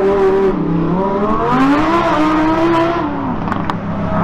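Car engine revving hard: its pitch drops, climbs and holds for a second or so, then falls off about three seconds in.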